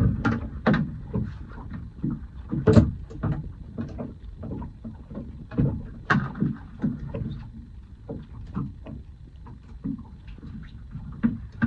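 Irregular knocks and clunks as fishing gear is handled on a small boat, some sharp and loud, over a low steady background.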